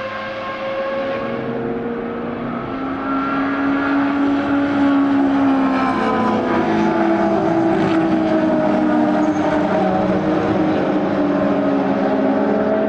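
Several racing car engines running hard at once, their notes rising and falling in pitch as the cars accelerate and pass, growing louder about two and a half seconds in.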